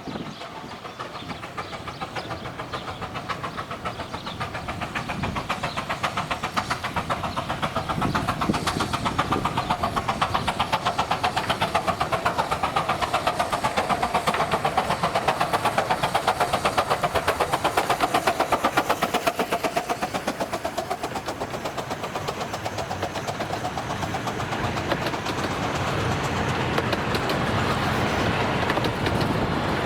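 Miniature 15-inch gauge steam train running past on the line, with rapid, evenly spaced beats and wheel-on-rail noise. It grows louder to a peak about two-thirds of the way through, eases off, then builds again near the end.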